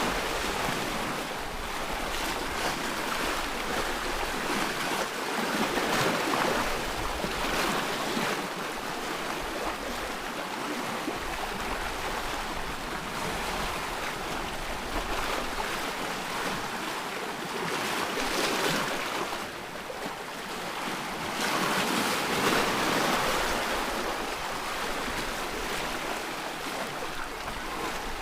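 Ocean surf washing in: a continuous rush of waves that swells and eases every few seconds.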